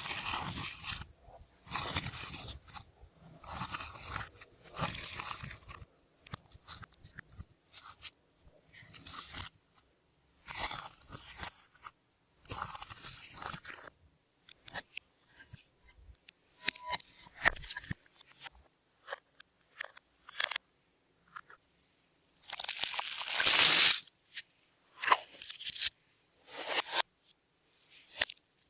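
Slime being worked by hand as glitter and makeup are mixed into it, in short irregular bursts with gaps between. The loudest burst lasts about a second and a half, roughly two-thirds of the way through.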